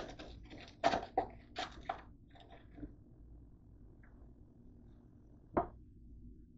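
Slotted spatula scraping and clacking against a metal baking sheet as baked fries are pried loose: a quick run of scrapes and knocks in the first three seconds, then a single sharp knock about five and a half seconds in. The fries had stuck to the pan.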